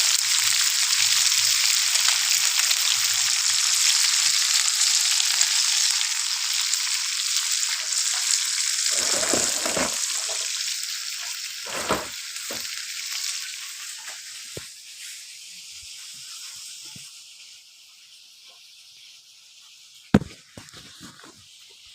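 Small mujair (tilapia) fish frying in hot oil: a dense sizzle that thins out and fades over the second half. A few knocks sound through it, the sharpest near the end.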